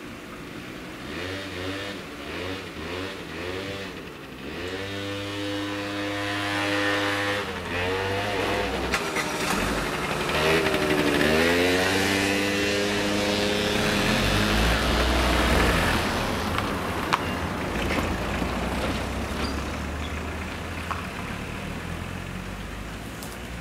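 Car engines pulling away and driving over a railway level crossing, revving up through the gears. One car passes close about halfway through, its engine note dipping and then rising again. A low rumble of further traffic follows and slowly fades.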